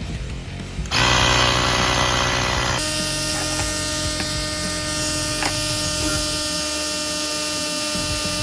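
Small electric tire inflator switching on about a second in and running steadily, a motor whine, as it pumps air into an ATV tire.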